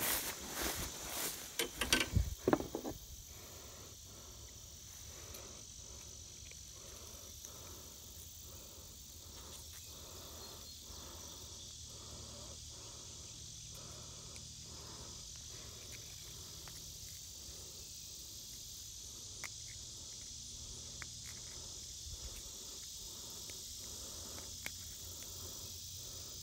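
Insects chirping in a steady outdoor chorus, with a soft regular pulsing about one beat every 0.7 seconds. Handling rustles and clicks come in the first few seconds.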